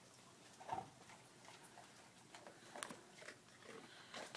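Near silence: room tone with a few faint taps and ticks, the clearest about a second in and near the three-second mark.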